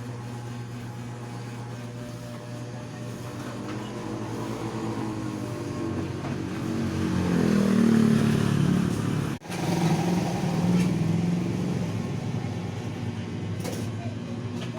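Street traffic: a motor vehicle's engine passes close, getting louder to a peak about eight seconds in and then easing off, over a steady low hum. The sound cuts out for an instant about nine seconds in.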